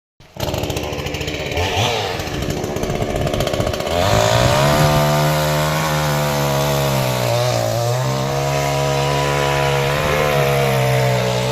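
Chainsaw engine running at low speed with a fast rattle, then revved up to high speed about four seconds in and held there, its pitch sagging slightly now and then, as when the chain bites into wood.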